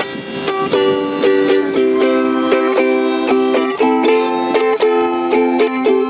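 Ukulele strummed in a steady rhythm, its chords changing every second or so.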